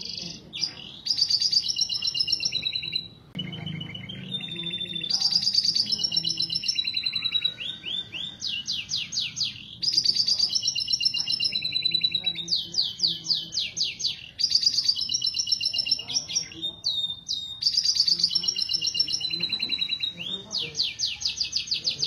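Domestic canaries singing breeding-season song: high, fast rattling trills and quick rolling notes in phrases a few seconds long, with short breaks between them. This is the mating song of birds in breeding condition, blending the male's long rolling 'ngerek' song with the female's calls.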